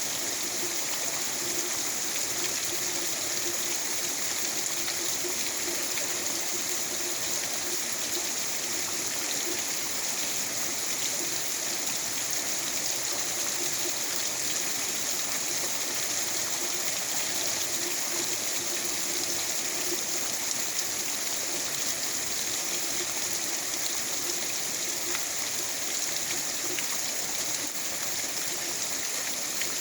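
Steady rain falling, an even unbroken hiss with no gusts or distinct drops standing out.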